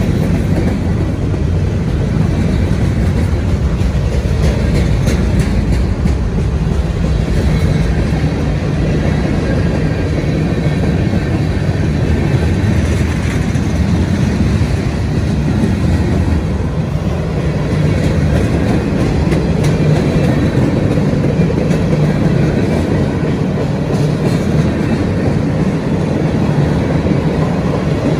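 A mixed freight train of covered hoppers and tank cars rolling past: a steady rumble of steel wheels on rail, with clicking as the wheels cross the rail joints.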